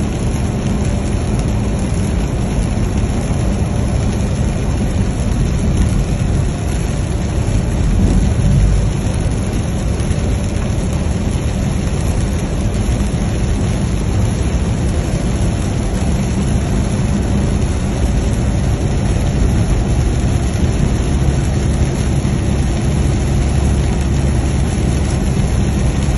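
Vehicle driving on a rain-soaked highway, heard from inside the cabin: steady low road and engine noise with rain beating on the windshield, swelling briefly about eight seconds in.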